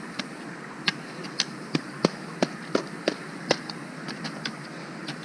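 A run of sharp, irregular knocks and clicks, about eight louder ones a third to half a second apart, over a steady background hiss.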